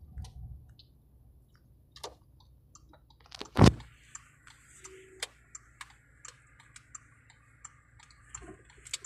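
Quiet car cabin on the move with a low steady engine and road hum, scattered light clicks, and one loud knock about three and a half seconds in.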